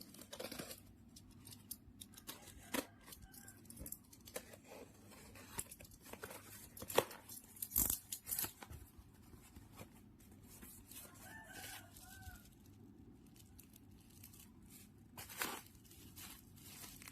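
Faint tearing, rustling and scattered clicks of a packet of keyboard switches being opened and handled, with a few louder taps and scrapes.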